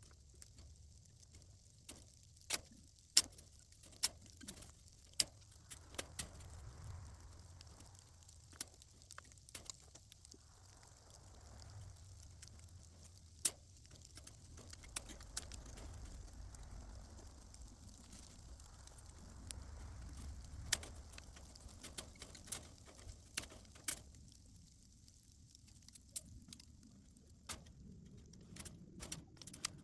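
Irregular sharp metal clicks and clinks of wire fence clips being hooked around a steel T-post and twisted onto woven wire fence with pliers, over a faint low rumble.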